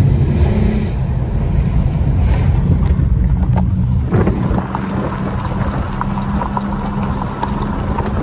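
A car driving, its engine running at a steady pitch over heavy low rumble, with a few sharp clicks along the way.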